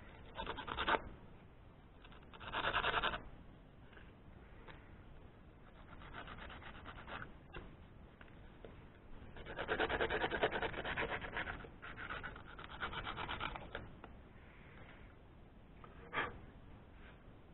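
Scratchy abrasive rubbing on a mini lathe part by hand, in several short spells of quick strokes; the longest lasts about four seconds near the middle.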